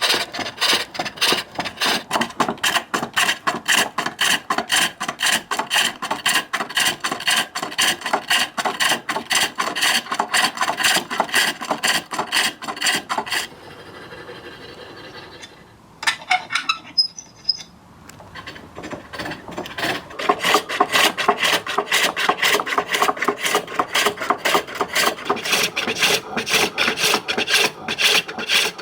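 Birch bowl being turned on a foot-powered pole lathe, the tool cutting the spinning wood in a rhythmic run of scraping strokes. About halfway through the cutting stops for a couple of seconds, with a few light knocks, then starts again.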